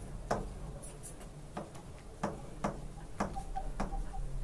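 Pen tip tapping and clicking on the glass of an interactive display as words are handwritten: short, unevenly spaced taps about two a second, over a steady low hum.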